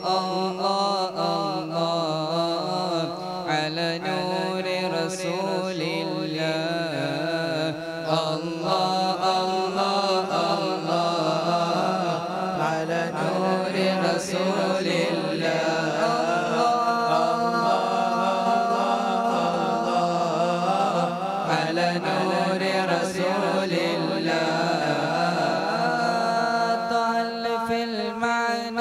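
A group of young men singing an Arabic nasheed into microphones: salawat in praise of the Prophet, sung as long, drawn-out, wavering notes without a break.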